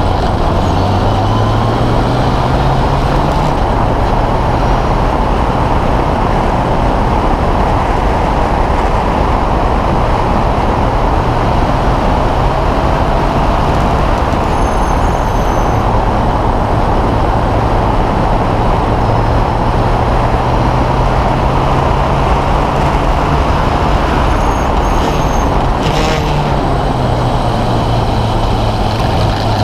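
Open-wheel single-seater race car's engine running at speed, heard onboard just behind the driver, under a heavy steady rush of wind and road noise. The engine note climbs in the first few seconds as the car accelerates, holds fairly steady, dips briefly a few seconds before the end and climbs again.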